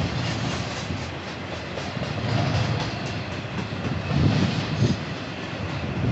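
Freight cars of a passing train rolling by: a steady rumble of steel wheels on the rails, with a few heavier thumps over rail joints about four seconds in.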